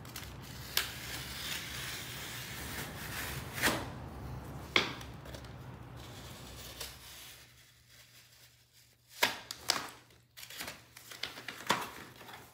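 Cardboard carton of vinyl plank flooring being torn open by hand: tearing and rustling cardboard, with several sharp snaps and knocks along the way.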